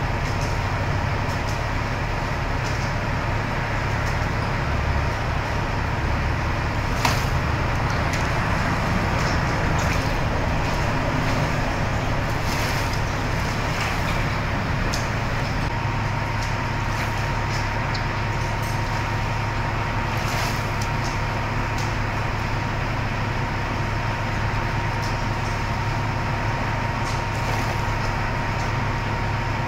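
A large motor running steadily: a low drone with a faint constant high whine over it.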